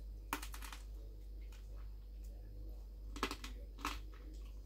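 Crisp roast pork crackling crunching and cracking in a few short clusters of sharp crackles, about half a second in and again around three and four seconds in.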